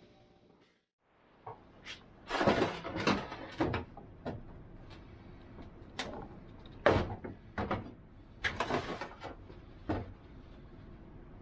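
Irregular knocks and clunks of things being handled and set down at a workbench, with a cluster about two to four seconds in and more around seven and nine seconds in.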